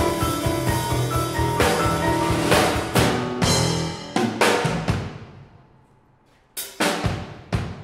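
A jazz trio of piano, double bass and drum kit playing together, ending a phrase on an accented hit a little after four seconds in that rings away to a brief silence. About six and a half seconds in, the drum kit starts again alone with sharp strokes.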